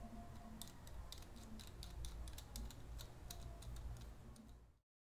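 Small plastic knob being unscrewed from the threaded bolt of a phone holder's handlebar clamp: a run of light, irregular clicks from the knob and plastic parts. It cuts off abruptly near the end.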